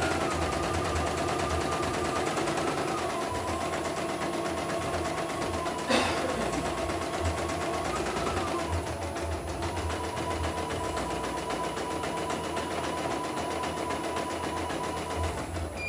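CNY E900 computerized embroidery machine stitching a design: rapid, even needle strokes over a motor whine that shifts up and down in pitch a few times, with one sharp click about six seconds in. It stops near the end, having finished the second thread colour.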